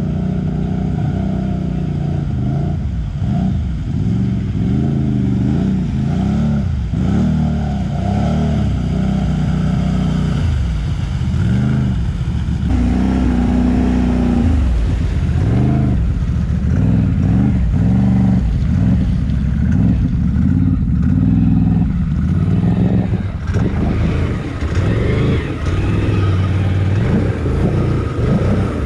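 Can-Am quad bike engine revving up and down again and again as it drives through shallow muddy water, heard close up from on the machine.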